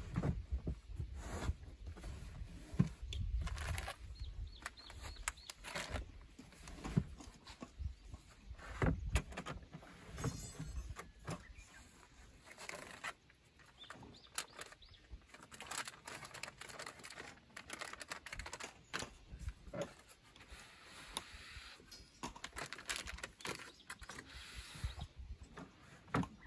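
Camping gear being packed into the back of a van: irregular knocks, clunks and rattles as bags and boxes are set down and slid across a wooden shelf, with fabric bags rustling between them.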